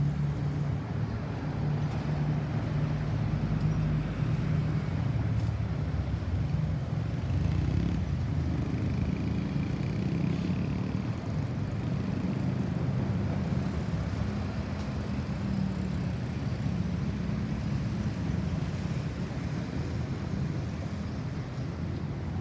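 Motor vehicle engine running amid road traffic noise: a steady low hum with no siren sounding.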